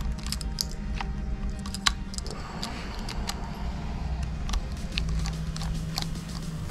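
Light, irregular metal clicks and ticks of a Phillips screwdriver turning a small screw out of a Daiwa Saltiga fishing reel's handle, over a steady low hum.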